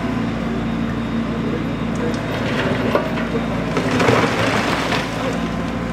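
Bricks and wooden debris pulled from a damaged house wall by a Liebherr LH22 material handler clatter and crash down onto a rubble pile, building up from about two and a half seconds in and loudest around four seconds. The machine's engine runs steadily underneath.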